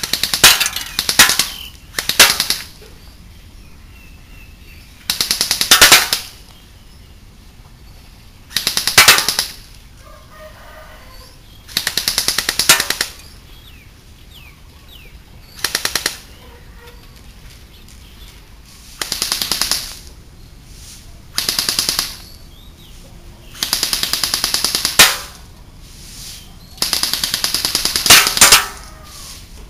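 JingGong MAC-10 electric gel blaster firing full-auto: about ten short bursts of rapid shots, each under about a second and a half, a few seconds apart.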